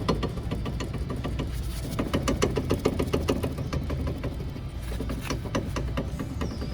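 Citroën C3 front brake caliper knocking and rattling in a rapid series of metallic knocks as it is forced back and forth: excess play from worn upper and lower slide pins, the 'chocalho' noise often mistaken for a suspension fault.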